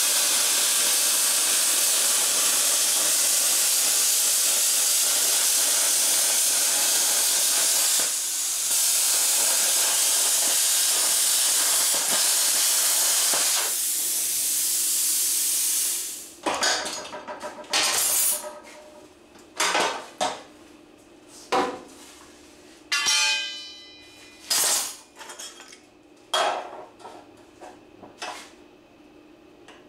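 Plasma cutter hissing steadily as it cuts through a steel bumper, with a short break about 8 seconds in. The hiss stops about halfway through, and a series of sharp metal clanks and scrapes on the bumper follows.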